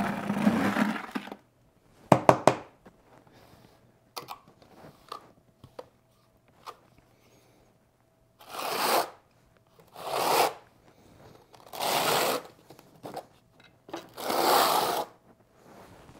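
Quarter-inch square-notched steel trowel scraping and combing thin-set mortar across cement board: four separate scraping strokes in the second half, each under a second long. A few short knocks and clicks near the start.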